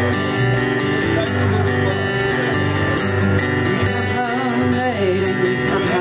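Live acoustic guitar and bass guitar playing a folk song, with a voice singing in the second half.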